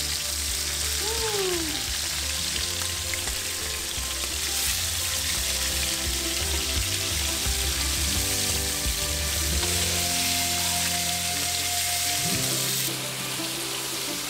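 Mutton snapper fillets searing in avocado oil in a hot skillet, sizzling steadily. The sizzle drops a little near the end.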